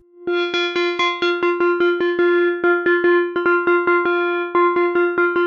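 Logic Pro X's Sculpture modeling synth on its 'Bright Keys' electric-piano preset, one note played over and over at the same pitch, about five times a second.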